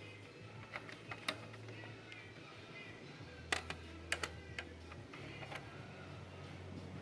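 Scattered sharp clicks and taps of hard plastic and metal parts being handled inside a Dell Optiplex 7010 desktop computer, a few in quick succession about a second in and again around four seconds in. Faint background music plays under them.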